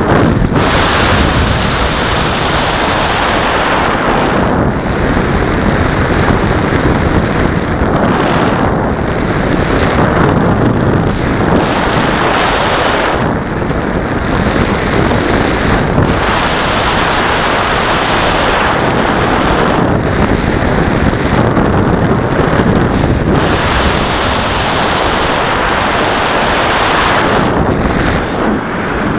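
Loud, steady wind rush over the microphone of a camera riding on a flying FPV model plane, briefly easing every few seconds.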